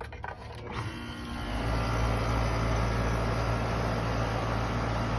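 Outdoor air-conditioner condenser unit starting up on a new 40+5 µF dual run capacitor: a click about half a second in, then the compressor and condenser fan come up to speed over about a second and settle into a steady running hum. The unit starting and running shows that the bad capacitor was the fault.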